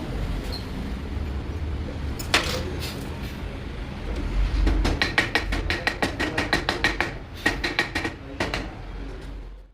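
Metal hand tools working on an old cooler motor's bolts: one sharp metallic clink, then a quick run of metallic clicks, about five a second, for some four seconds, over a low background rumble.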